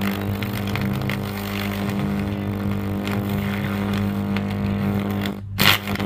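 Electric arc between the carbon electrodes of a homemade mini arc furnace, buzzing steadily with a crackle while it melts metal in the crucible. Near the end the arc drops out for a moment and comes back with a loud crackling burst.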